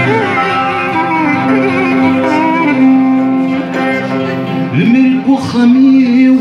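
Live music: a man singing a long, ornamented line over a fretted lute with guitar and drum accompaniment.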